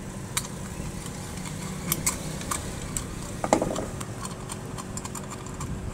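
Scattered light clicks and taps of a screwdriver and hand on the metal capacitor cover of an electric water pump motor, with a short squeak a little past halfway, over a steady low hum.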